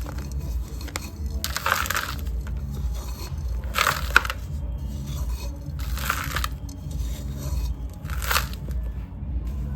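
Dry, dusty sand cylinders being crumbled by hand, four separate crunches about two seconds apart, over a steady low hum.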